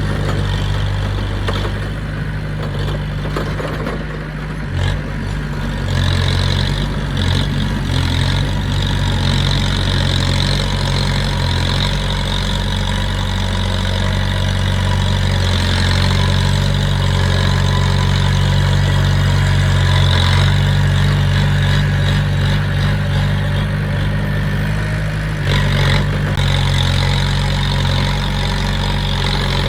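Heavy earthmoving machine's engine running steadily, with its level rising somewhat after the first few seconds, and a few brief knocks.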